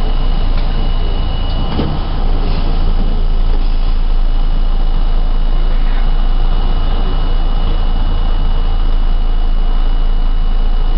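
An R32 subway car running through a tunnel, heard from inside the car: a steady loud rumble of wheels on rail and running gear, with a thin steady high-pitched whine over it. A single clank about two seconds in.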